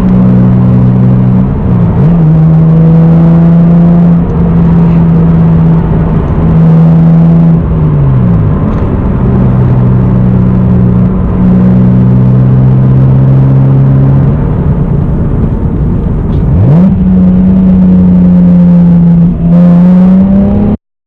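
Naturally aspirated 3.0-litre straight-six of a 1993 Toyota Supra with a full aftermarket exhaust and cold air intake, heard from the cabin while cruising. The engine holds a steady note that shifts pitch several times, with quick drops and rises in revs between gears.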